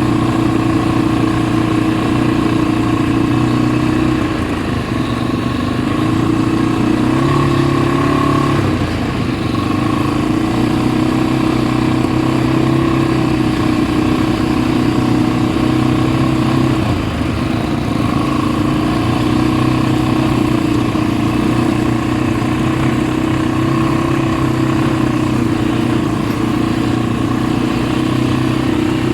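ATV engine running under way with a steady note that dips briefly a few times as the throttle eases, then picks back up.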